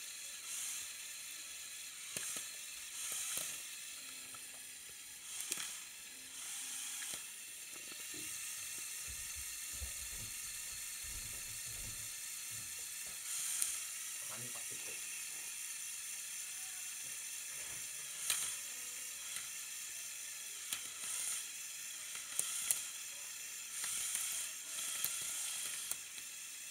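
Lego Technic Power Functions electric motors and gears whirring in short bursts, many times over, against a steady hiss, as the tracked model climbs the couch.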